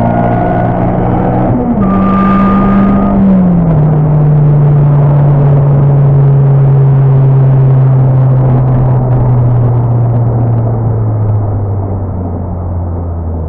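Supercharged 2014 Honda Civic Si's 2.4-litre four-cylinder engine, heard from inside the cabin, running at high revs at first. The revs drop suddenly about two seconds in, then the engine note stays low and sinks in a few steps as the car slows, getting quieter near the end.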